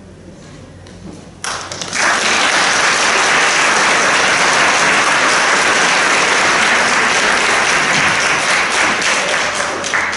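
Audience applauding, breaking out suddenly about a second and a half in and tapering off near the end.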